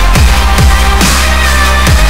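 Electronic background music with a sustained deep bass line and a steady beat of heavy kick drums.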